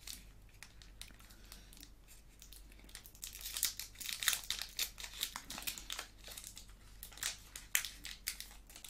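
Foil Pokémon booster pack being crinkled and torn open by hand: a few light crackles at first, then a dense run of sharp crinkling from about three seconds in.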